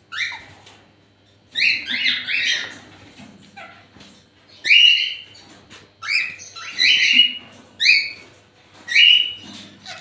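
Cockatiel chick giving harsh, rasping squawks, about a dozen short calls spaced half a second to a second apart, after a brief lull near the start.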